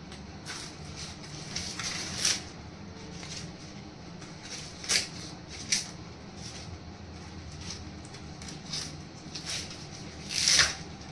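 Maize cobs being handled in a kitchen: scattered short rustles and scrapes, with a longer one near the end, over a low steady hum.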